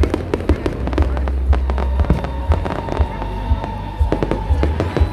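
Aerial fireworks going off in quick succession: a dense run of sharp bangs and crackles, several a second, over a deep low booming.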